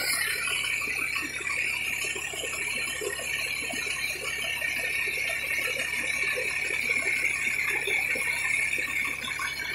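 A fire engine's diesel engine idling close by: a steady drone and hum, with light, scattered metallic rattling over it.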